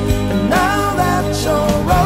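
A song playing: a singing voice over instrumental backing.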